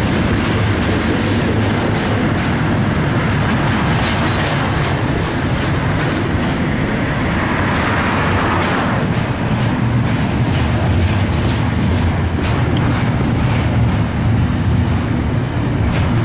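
Double-stack intermodal freight cars rolling past close by: a steady heavy rumble of steel wheels on rail, with a run of clickety-clack clicks as the wheels pass over rail joints.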